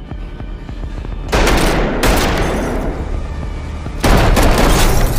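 Pistol gunfire in a house shootout: bursts of shots about a second in, again at two seconds, and a louder burst at about four seconds, each followed by a long ringing echo.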